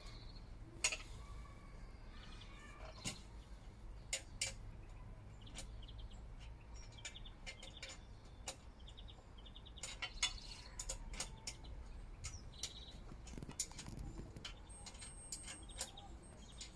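Small birds chirping and twittering in short calls and quick rattling trains, with scattered sharp clicks over a low steady background rumble.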